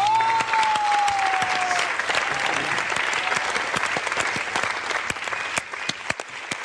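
Studio audience and judges applauding loudly, with one long cheering cry near the start; the clapping thins out toward the end.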